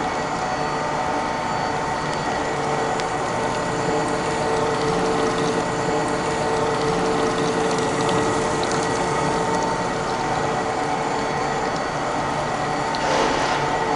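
A machine running steadily, with a constant hum over an even wash of noise, and a brief swell of noise near the end.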